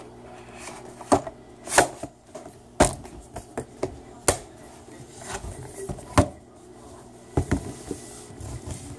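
Cardboard earbud packaging handled on a wooden table: the inner tray slid back into its sleeve, then several sharp separate knocks and taps as the box is pressed shut, tapped and stood on the table.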